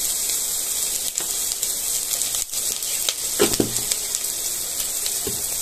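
Onions, green chillies and garlic paste sizzling steadily in hot oil in an aluminium pressure cooker, with a few light clicks of a steel spoon against the pot.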